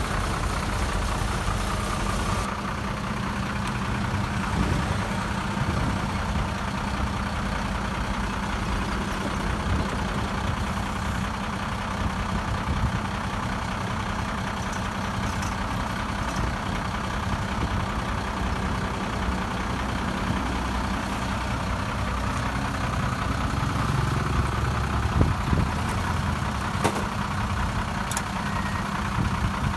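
Heavy diesel engine of earthmoving machinery running steadily, with a few sharp clanks near the end.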